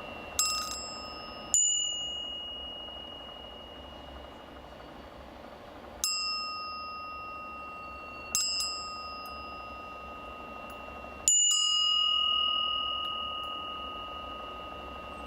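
The 'Glory of Russia' (Slava Rossii) bell struck five times at uneven intervals. Each strike rings out with a bright clang that dies quickly, leaving two clear tones that hum on and fade slowly over several seconds.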